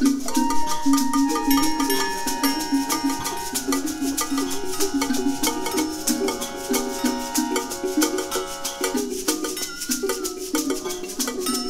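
Informal acoustic music: a hand shaker keeps a fast, steady rhythm over a repeating plucked-string figure, with long held higher notes above that stop about three quarters of the way through.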